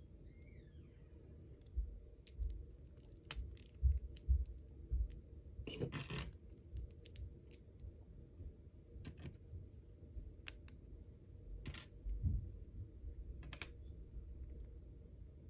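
LEGO bricks being pulled apart by hand: irregular small plastic clicks and snaps, with a louder cluster about six seconds in and a few soft low knocks.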